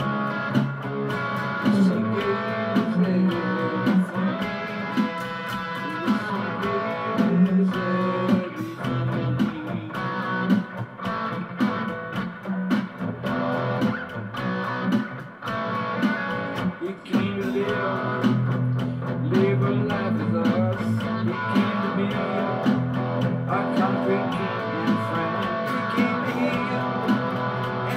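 Electric guitar played continuously through an amplifier, an unbroken instrumental passage.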